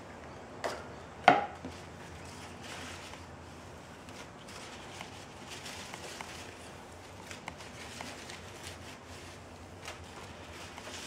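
A sharp knock on a hard countertop about a second in, just after a lighter one, as a knife and its sheath are set down. Then a paper towel rustles and rubs as it is wiped along the knife's stainless steel blade.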